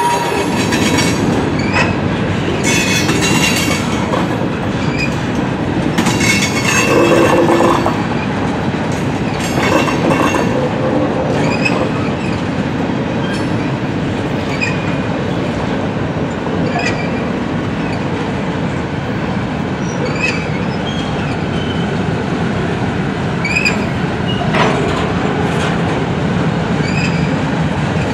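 Freight train of covered hoppers and boxcars rolling past: steady rumble and clatter of steel wheels on the rails, with short wheel squeals now and then, most of them in the first ten seconds.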